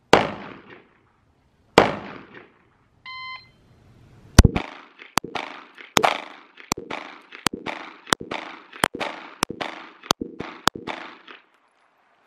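A shot timer beeps once. About a second later a Glock 19 Gen 5 9mm pistol fires a rapid string of roughly two shots a second, with the last shot about seven and a half seconds after the beep. Two single gunshots sound before the beep.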